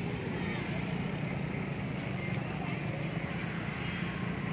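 Steady drone of radio-controlled model boat engines running on the water, with no pauses, and a crowd talking along with it.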